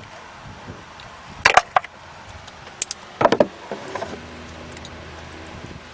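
A few short metallic clinks and knocks of hand tools being handled during spark plug work: a 3/8 stubby ratchet and socket set down and picked up. About four seconds in, a low steady hum sets in.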